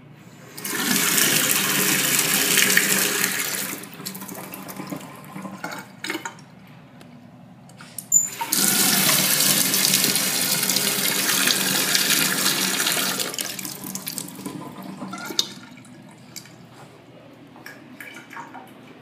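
Faucet running into a stainless steel sink, turned on twice: about three seconds of water near the start, then a longer run of about six seconds from about eight seconds in that tapers off. Between and after the runs come a few sharp clicks.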